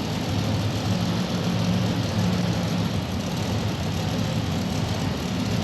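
Modified pulling tractor's engine running at a steady idle, just refired after being shut off on the track.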